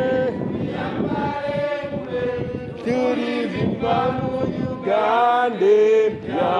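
A group of protesters chanting a song together in phrases, with short breaks between the lines.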